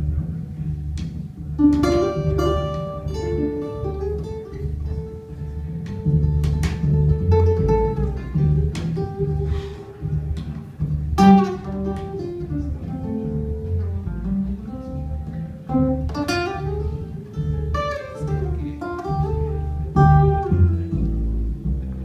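Live upright double bass and acoustic guitar playing together: steady plucked bass notes under a moving guitar line.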